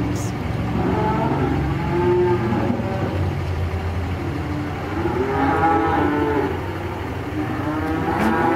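Cattle mooing several times, long calls that rise and fall in pitch, over a steady low hum.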